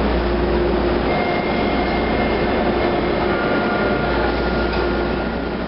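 TTC UTDC H6 subway car standing with its doors open: a steady hum and whir from the car's onboard equipment and ventilation, with faint steady whines starting about a second in and again about three seconds in. The sound fades near the end.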